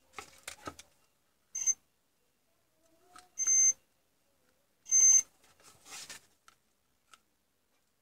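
DT9205A digital multimeter's continuity buzzer beeping three short times as the test probes touch points on a circuit board, the beep signalling a low-resistance path between the probe tips. Light scratching and clicking of the probe tips on the solder joints comes between the beeps.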